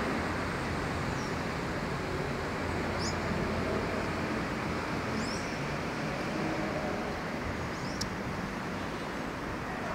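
Steady wash of rain and city background noise, with a few faint, short, high bird chirps scattered through.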